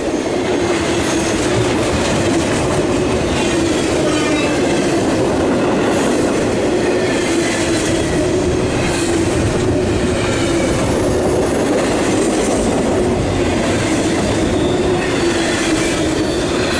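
CSX intermodal freight train's cars rolling past at speed: a loud, steady rumble and clatter of steel wheels on the rails.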